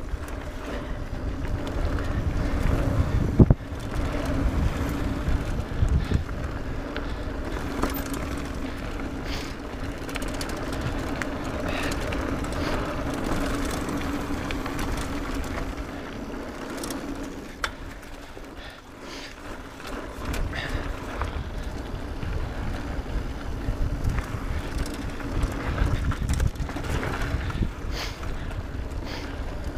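Mountain bike descending a dirt singletrack, heard from a camera riding along: wind buffeting the microphone and tyres rolling over dirt, with a steady hum through most of it and sharp knocks from bumps, the loudest about three and a half seconds in.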